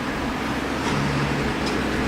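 Jet engine noise from a Boeing 777F's twin GE90 turbofans, a steady rushing roar growing slowly louder.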